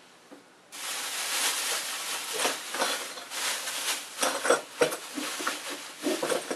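Thin plastic shopping bag rustling and crinkling as hands rummage inside it, starting about a second in, with a series of sharper crackles.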